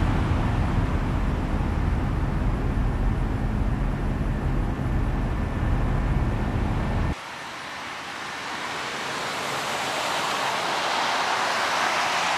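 Highway traffic noise recorded on a Sony PCM-D10 recorder, with a heavy low rumble. About seven seconds in it switches abruptly to the Sony ZV-1 camera's microphone: the low rumble drops away and the rush of a passing vehicle swells up toward the end.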